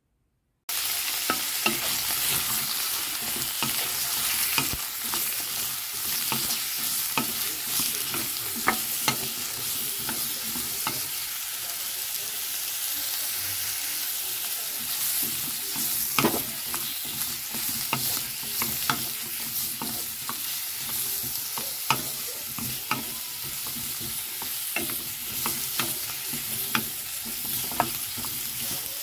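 Beetroot cubes frying in hot oil in a pan, stirred with a wooden spoon. The steady sizzle begins abruptly about a second in and is dotted with frequent sharp clicks.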